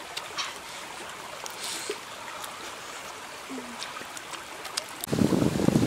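Steady rush of a shallow rocky stream, with a few faint mouth clicks of chewing. About five seconds in, a loud low rumble breaks in and runs to the end.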